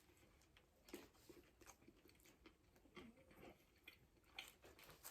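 Faint chewing of a bite of fried chicken, with scattered soft crunches and clicks.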